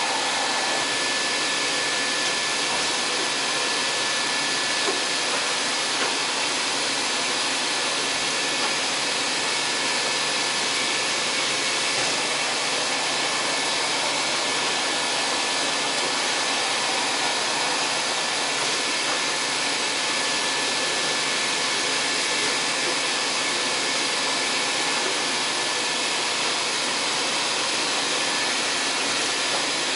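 1997 Fadal VMC4020 CNC vertical machining center running, a steady whir with a thin high whine held throughout, as its table traverses along the X axis.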